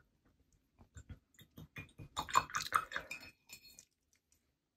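Faint, scattered clicks and light clinks of painting tools being handled and set down.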